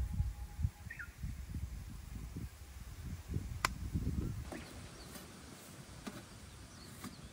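Wind buffeting the microphone in uneven gusts, with a bird giving a few short falling chirps, and a single sharp click a little past the middle.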